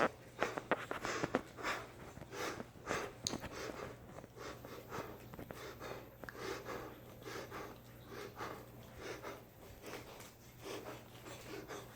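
A man breathing hard and rhythmically through the nose and mouth from exertion while exercising, about two breaths a second, louder in the first few seconds and easing later on.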